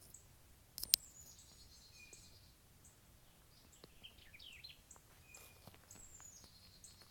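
Wild birds singing and chirping, a few short high calls and falling whistles spread through, over faint outdoor background noise, with one sharp click about a second in.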